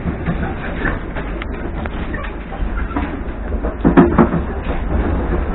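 Electric commuter train running between stations, heard from inside the carriage: a steady low rumble of wheels on the rails, with a short cluster of louder wheel knocks about four seconds in.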